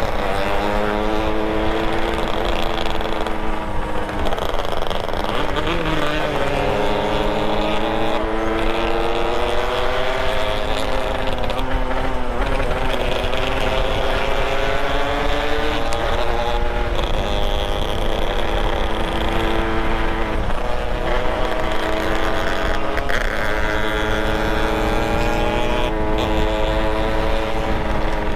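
Motorcycle engine running under load while riding, its revs rising and falling every few seconds, with wind rumbling on the microphone.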